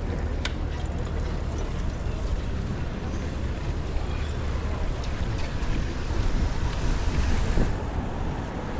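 Wind rumbling on the microphone of a moving bicycle, over street noise. The hiss swells for a couple of seconds about six seconds in, then drops off.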